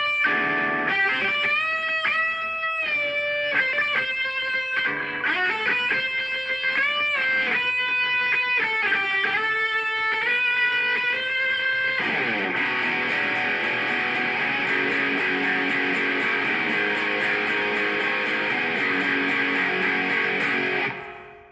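Electric guitar played through a Zoom G1X Four multi-effects pedal preset: a single-note lead line with notes sliding in pitch. About twelve seconds in, the sound switches to a sustained chord with a fast, even pulse, which fades out near the end.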